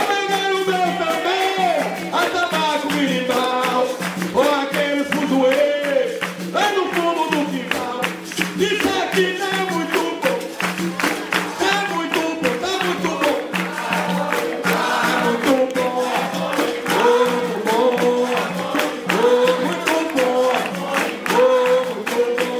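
Capoeira roda music: berimbaus, an atabaque drum and hand-clapping keep a steady rhythm under group singing.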